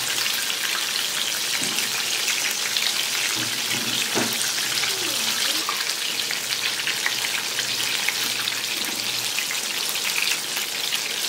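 Batter-coated chicken legs deep-frying in hot oil in an iron kadai, a steady dense crackle and sizzle of the oil bubbling hard around the pieces. The pieces are turned over with a steel slotted spatula once the first side has browned.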